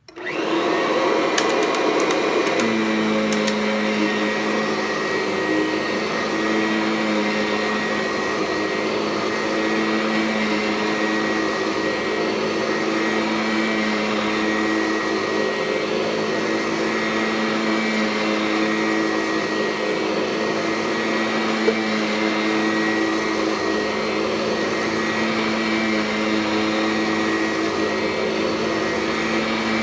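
Kirby Sentria upright vacuum cleaner switched on. Its motor comes up to speed over about two seconds, then runs steadily on full power as it is worked over the carpet.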